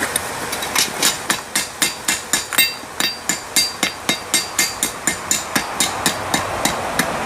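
Blacksmith's hammer striking a hot railroad spike on the anvil, about three blows a second, each with a bright metallic ring. The hammering is over the edge of the anvil, separating the split end into the ram's-head horns.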